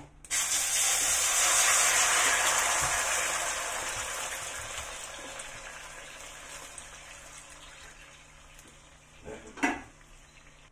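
Coconut milk poured from a carton into a hot wok, hissing and sizzling loudly as it hits the pan, then dying down as the pour goes on. A single knock near the end.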